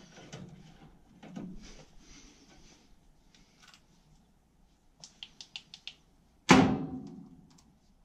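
Work noises at an open furnace cabinet: soft handling, then a quick run of small clicks, and about six and a half seconds in a sudden loud bang that rings out for about a second.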